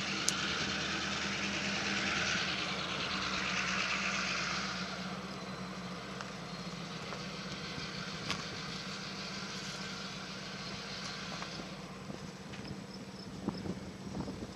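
Steady low hum of an idling engine under a broad hiss. The hiss is louder for the first five seconds, then eases off.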